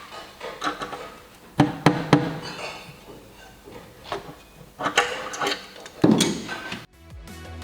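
Scattered sharp knocks and clatters of hand tools, a flathead screwdriver among them, working on a car's underbody. Background music comes in near the end.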